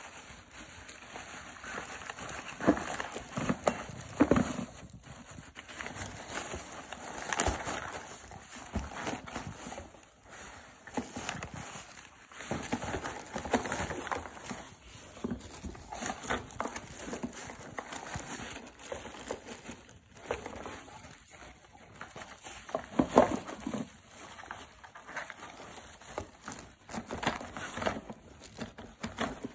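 A dog nosing and digging through a cardboard box stuffed with plastic bags, bubble wrap and packaging to find hidden kibble: irregular rustling and crinkling of plastic, with sharp crackles and knocks, the loudest a little after twenty seconds in.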